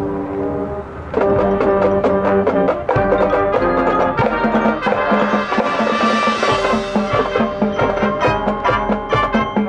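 High school marching band playing, brass with front-ensemble mallet percussion: a held brass chord, then about a second in the full band comes in with quick, accented percussion strikes.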